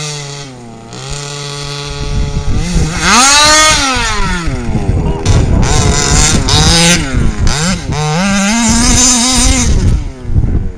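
Small two-stroke petrol engine of a 1/5-scale FG radio-controlled buggy, running steadily at first, then revving up and down hard again and again from about two seconds in as it is driven.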